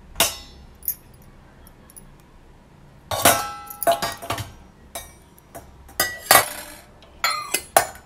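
Washed plates and utensils clinking and clattering against each other and the dishwasher rack as they are handled. It is a string of sharp, irregular clinks, some with a short ringing tone, loudest around three and six seconds in.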